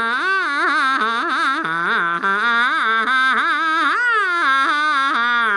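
A man singing a long, drawn-out Chinese opera-style melisma on an 'ah' vowel, his voice sliding up and down and wavering with vibrato on held notes.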